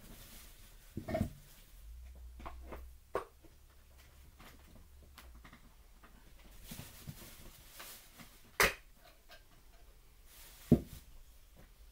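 Objects being handled on a table: a few light clicks and knocks as containers are picked up and set down, with two sharper knocks late on, the last the loudest.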